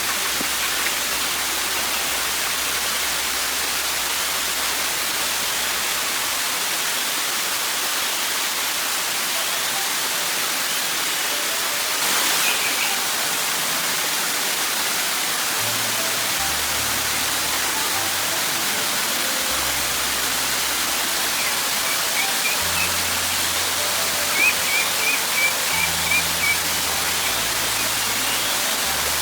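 A waterfall's steady rushing water, under soft background music with slow, changing low notes. A brief louder splash of noise comes near the middle, and a quick run of high chirps comes near the end.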